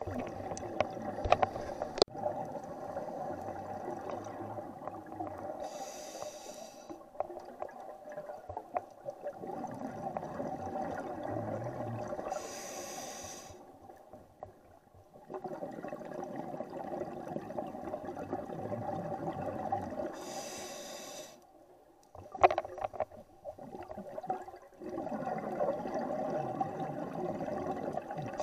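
Underwater scuba breathing through a regulator: a short hissing inhale about every seven seconds, each followed by several seconds of bubbling exhale. A few sharp clicks come near the start and again about two-thirds of the way through.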